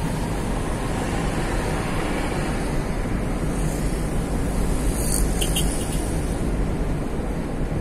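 Steady road and engine noise of a moving car heard from inside the cabin: a low rumble under an even rushing of tyres and wind. About five seconds in there is a brief faint high rattle.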